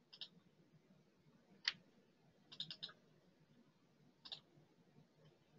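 Faint computer mouse clicks: a quick double click at the start, a single click under two seconds in, a run of three or four quick clicks just before three seconds, and another double click past four seconds.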